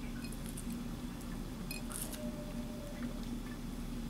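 Faint scattered ticks and light patter of chopped green onion pieces dropping by hand onto glazed chicken wings on a plate, over a steady low hum.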